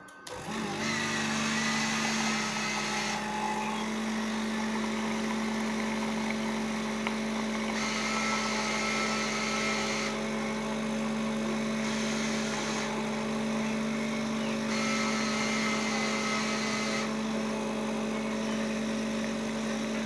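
Rijo42 Selecta drinks vending machine making a hot chocolate: a steady motor hum starts about half a second in, with a hissing layer that switches on and off several times as the machine dispenses and mixes the drink.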